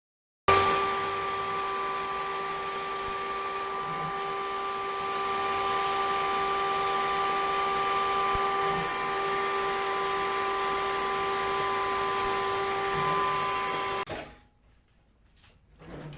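Shop vac motor running steadily, a whine with a few fixed tones over rushing air, then cutting off suddenly near the end.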